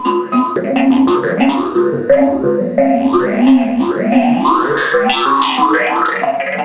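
Buchla 200 modular synthesizer playing a quick, dense run of pitched notes, each sweeping upward in brightness. The notes grow brighter about halfway through.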